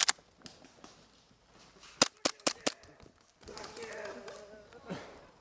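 Airsoft guns firing in short, sharp shots: one at the start, then four quick shots about two seconds in.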